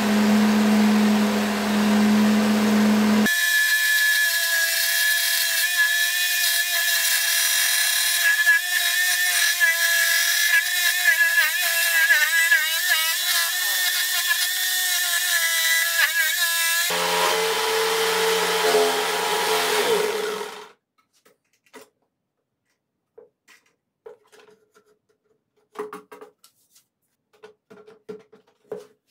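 Jigsaw mounted upside down under a benchtop table, running and cutting a curve through a laminated board. Its pitch wavers as the blade works around the curve. It shuts off about 20 seconds in, followed by light knocks of the board being handled on the table.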